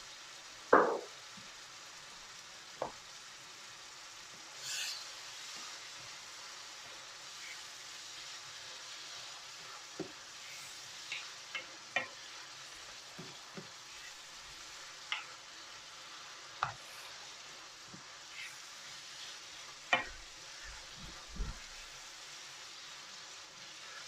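Chicken jalfrezi sizzling in a frying pan while a utensil stirs it, knocking against the pan a dozen or so times, loudest about a second in.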